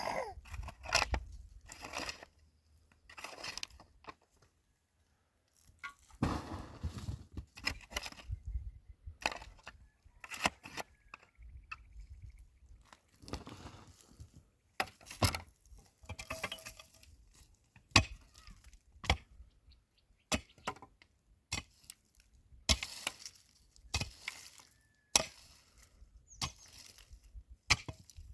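An irregular series of sharp knocks and cracks, like wood being struck and split, broken by a brief pause about four seconds in.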